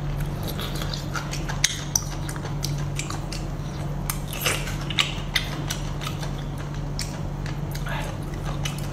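Close-up eating sounds of biting into and sucking on whole braised octopus in a wet chili sauce: wet smacks, slurps and sharp mouth clicks, over a steady low hum.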